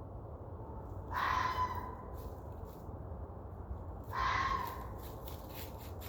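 Two short, harsh animal calls about three seconds apart, each about half a second long, the 'weird banshee' sound from the woods; the animal is not identified.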